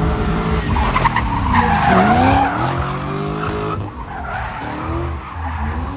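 A drift car's engine revving hard, its pitch dipping and climbing again several times, while the tyres squeal as the car slides. The squeal is strongest from about one to two and a half seconds in.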